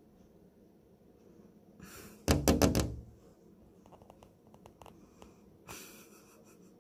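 A quick run of about five loud knocks in under a second, about two seconds in, followed by faint ticks and a brief rustle near the end.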